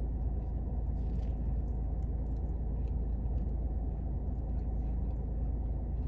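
Steady low rumble inside a parked car's cabin, with a few faint soft chewing sounds as a burger is eaten.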